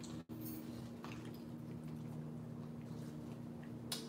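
Quiet room with a steady low electrical hum, faint scattered clicks and a sharper click near the end; the sound drops out briefly about a quarter second in.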